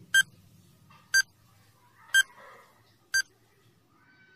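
Countdown timer beeping: four short electronic beeps, evenly spaced one a second.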